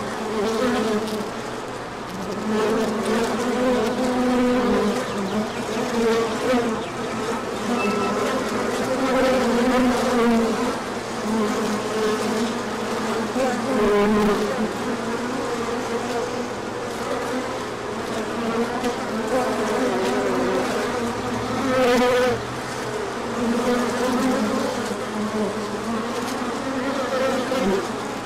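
Many honey bees buzzing around the hive, a steady, wavering drone that swells and fades as bees pass close. A brief knock sounds about three-quarters of the way through.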